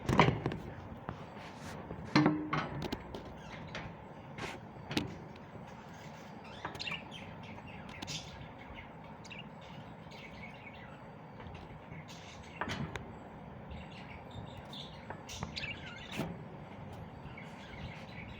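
Birds chirping off and on, with a few sharp knocks or clicks, the loudest at the very start and about two seconds in.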